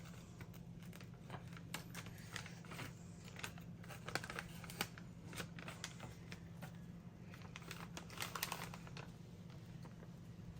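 MRE packaging being handled: scattered small crinkles and clicks of plastic and foil pouches, with a few louder crackles near the end, over a steady low hum.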